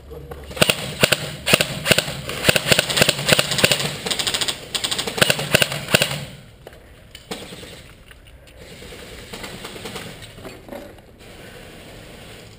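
Airsoft electric rifles firing rapid bursts of clicking shots for about six seconds, then the firing thins out to a few scattered, quieter shots.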